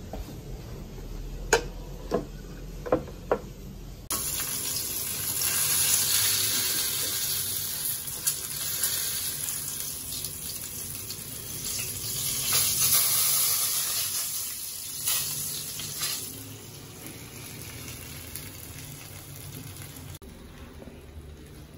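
Whole trevally frying in a pan of hot oil, sizzling with a loud steady hiss that starts suddenly about four seconds in, swells twice as the fish is moved with metal tongs, and dies away near the end. Before the sizzle come four sharp clicks.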